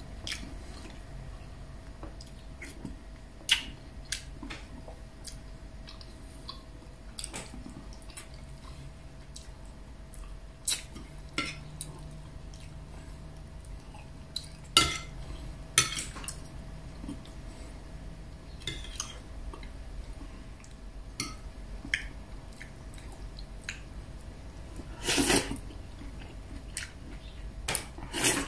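Metal spoon and fork clinking and scraping on a ceramic plate during eating, a sharp click every few seconds. A faint steady hum runs underneath.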